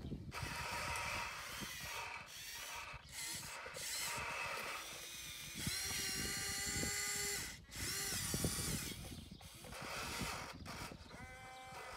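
Electric motors and gears of a Huina radio-controlled excavator whining. The pitch rises and falls as it works, in stretches a second or two long with short breaks between them.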